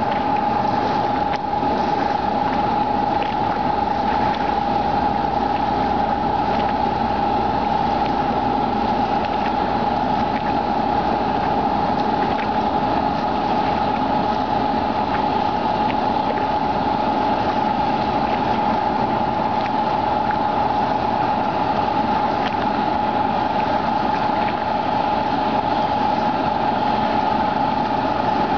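Engines of a military raft ferry running steadily, with a constant whine above the rumble.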